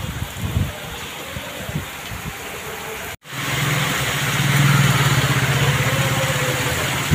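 Heavy rain hissing steadily. About three seconds in the sound cuts, and a vehicle engine runs close by over the downpour on a flooded road, a steady hum that is loudest a little after the cut.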